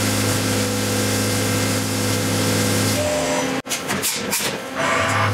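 CNC milling machine running with flood coolant spraying: a steady hum under an even hiss. About three and a half seconds in it breaks off abruptly, and there is a second or so of uneven noise before the steady sound comes back.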